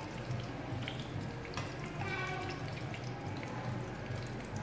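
Hot oil in a frying pan sizzling and popping faintly as fried tofu pieces are lifted out with chopsticks, with scattered light clicks of chopsticks on the pan and plate over a low steady hum.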